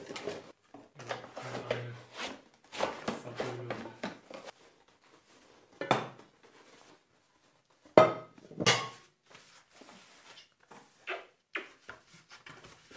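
Pots, a frying pan and their cardboard boxes being handled: rustling of cardboard and packaging, then two sharp clanks of cookware set down about eight seconds in, followed by a few lighter knocks.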